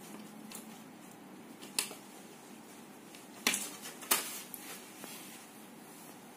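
Handling of the TV power board's wire harness and connectors on the metal chassis: a few sharp clicks and taps, the loudest about two, three and a half and four seconds in, over faint room tone.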